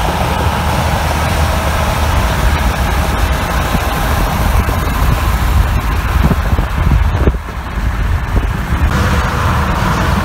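Highway truck traffic heard from a moving car: a steady, loud rumble of truck engines and tyre noise as trucks pass close alongside, with a brief drop in the noise about seven seconds in.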